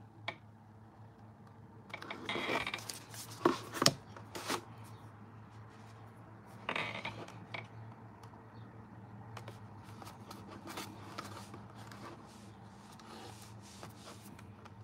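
Handling sounds of a small painting canvas being shifted on a tabletop: scraping and rubbing about two seconds in and again near seven seconds, with a few light knocks around four seconds. A steady low hum runs underneath.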